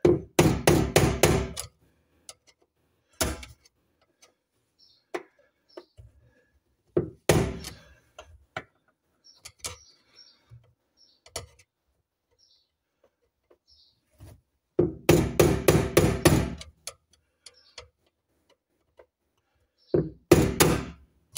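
Hammer blows on a screwdriver held against the fuel pump's locking ring on a Jaguar XK8 fuel tank, knocking the ring round to tighten it. The knocks come in quick bursts of several blows, with single knocks and pauses between.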